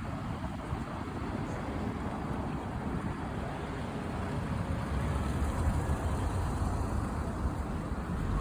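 Road traffic: a motor vehicle's low engine and tyre rumble that grows louder about halfway through.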